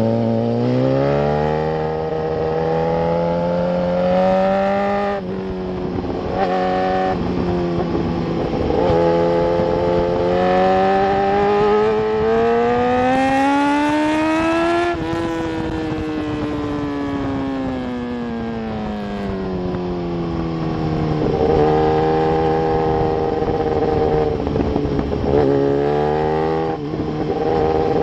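Sport motorcycle engine at full throttle on track, heard from on board: pitch climbs through the gears with brief breaks at each upshift, falls away about halfway through as the bike slows for a corner, then climbs again near the end.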